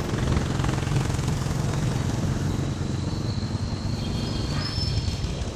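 Honda Click 125i scooter's single-cylinder engine running as it rides slowly, with a steady low rumble of wind and road noise.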